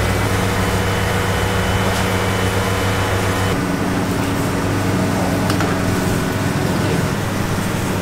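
A steady low mechanical hum under a constant noisy background, its tone shifting slightly about three and a half seconds in.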